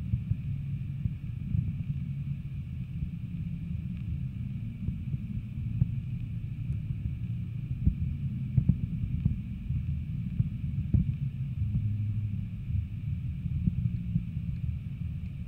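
Muffled, steady low underwater rumble picked up by a camera submerged in the water, with scattered faint clicks and ticks.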